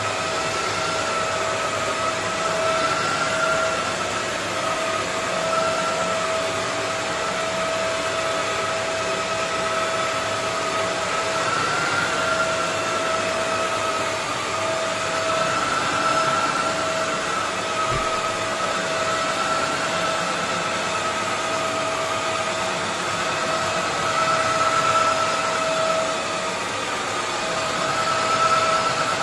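Kärcher FC 5 hard-floor cleaner running as it is pushed over tiles: a steady motor whine over a rushing hiss, the higher note wavering slightly as the machine moves.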